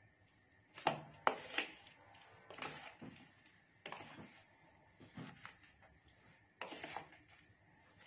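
Metal spoon and fork scraping and knocking against a plastic mixing bowl while tossing shredded cabbage and onion in dry flour and gram flour, before any water is added. Short separate scrapes come about once a second.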